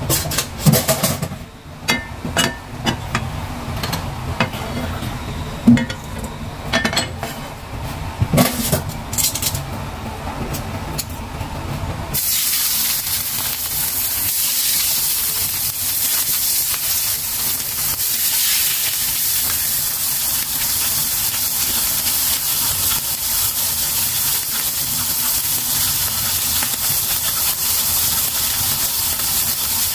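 Scattered knocks and clicks over a low rumble, then from about twelve seconds in a steady sizzle as seasoned fish fillets fry in hot oil in a cast-iron skillet.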